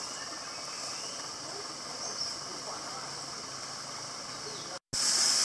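Steady high-pitched drone of a tropical insect chorus, with faint voices in the background. After a brief dropout near the end, the drone comes back louder.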